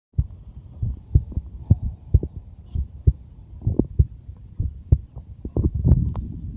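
A 23-year-old person's heartbeat recorded close up: repeated low, dull thumps, many coming in quick pairs, with a few faint clicks between them.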